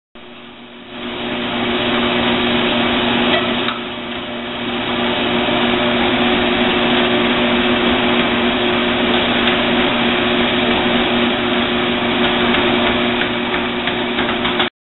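Weslo motorized treadmill running, its motor and moving belt making a steady hum made of two fixed tones under a whirring hiss. It gets louder about a second in, dips briefly near four seconds, and cuts off suddenly near the end.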